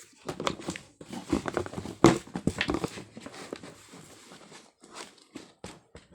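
Shoes and a shoebox being handled: a run of knocks, taps and rustling, loudest about two seconds in, quieter in the second half.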